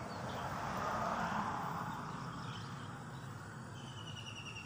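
A passing vehicle swelling and fading, loudest about a second in. Near the end a bird gives a rapid, slightly falling trill.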